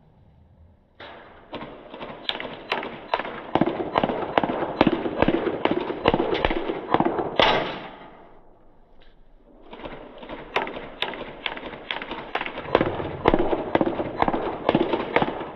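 Airsoft gun firing a rapid string of shots, about three pops a second, pausing briefly about halfway and then firing a second string.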